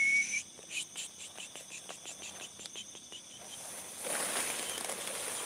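Night insects, crickets, chirring steadily, with scattered small clicks and rustles in the grass and a breathy rustling hiss near the end.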